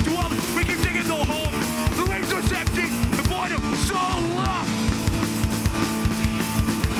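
Hardcore punk band playing live: fast drum hits under distorted electric guitars, with a vocalist shouting into the microphone.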